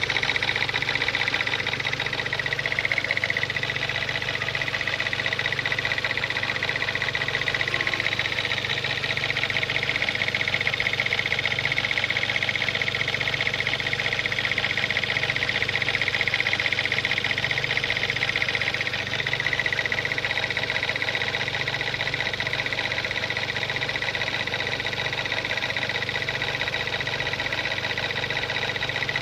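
Mazda 626 engine running with a steady, rapid clickety-clack from the timing belt area by the crank pulley, very distinct once the engine is warm. The owner suspects the crankshaft timing-belt sprocket is not tight and is slapping back and forth.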